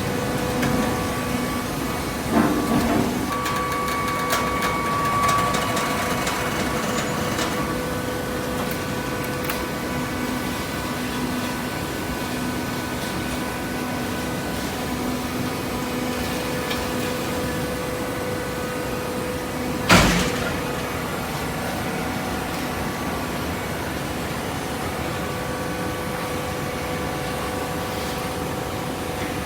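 Automatic-feed hydraulic cardboard baler running with a steady machine hum, a few clanks a couple of seconds in and one loud bang about twenty seconds in.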